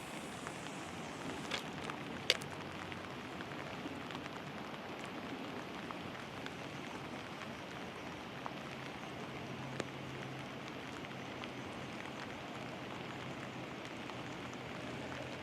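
Steady rain falling: an even hiss, with a few sharp ticks, the loudest about two seconds in.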